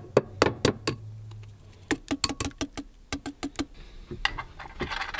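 A few sharp taps of an egg cracked on the rim of a bowl, then a quick run of clicks, about six a second, as a wire whisk beats egg yolks against the bowl. Near the end a whisk scrapes steadily around a pan of thickening milk, flour and sugar.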